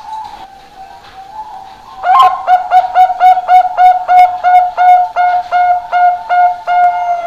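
Perkutut Bangkok (Thai-bred zebra dove) singing: a few soft, drawn-out coos, then about two seconds in a fast run of short, loud, clear coo notes, about three to four a second.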